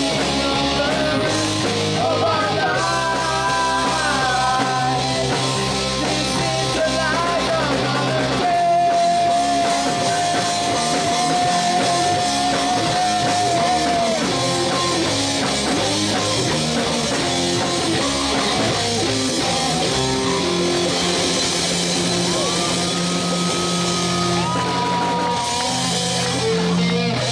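Live rock band playing: a young singer over electric guitar, bass guitar and drum kit, with one long held sung note about a third of the way through.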